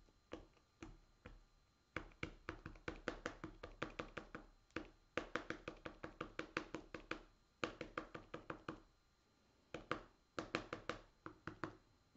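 A hand-held texturing tool tapped rapidly onto a cold wax and oil painting on a board. The taps come about six a second, in runs of one to two seconds with short pauses between.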